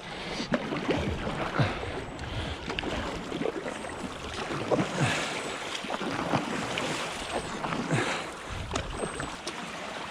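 Fast-flowing floodwater rushing around a stand-up paddleboard, with irregular splashes from paddle strokes and water against the board, and some wind on the microphone.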